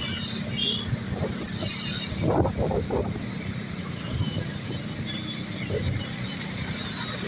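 Roadside traffic: a steady low engine rumble from passing vehicles, with a brief louder burst a little over two seconds in. No multi-tone telolet horn is sounding.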